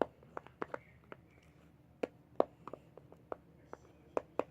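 Irregular sharp clicks and taps of a utensil against a plastic container, typical of stirring shaving foam into a glue-and-paint slime mixture.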